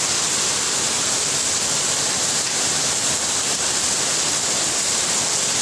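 A steady, loud rushing hiss with no change in level, like rushing water or heavy rain.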